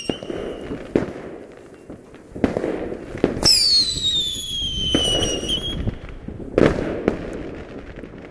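Fireworks going off: a string of sharp bangs and booms, with a whistling firework about three seconds in whose shrill tone falls in pitch for about two seconds.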